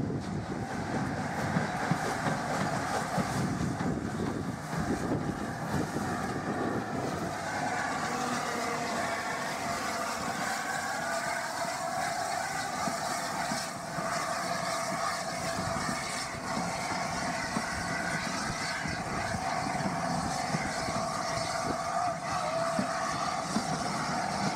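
LNER A4 class steam locomotive 4498 hauling a train of coaches past, its wheels and the coaches running over the rails in a steady rumble, with wind buffeting the microphone.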